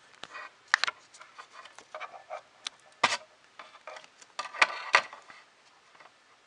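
Plastic printer parts and a cable being handled and fitted together: a series of sharp clicks and light rubbing and rustling, with the loudest clicks about a second in, around three seconds in, and twice near five seconds.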